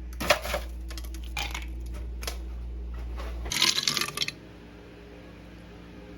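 Light clinks and clatters of small hard objects being handled: a few separate taps, then a quick cluster of them about three and a half seconds in, over a low room hum.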